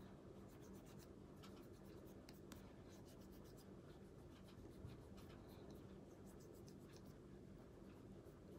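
Very faint, irregular scratchy rubbing and light ticks of fingertips blending powder shading onto the face, over a low steady hum.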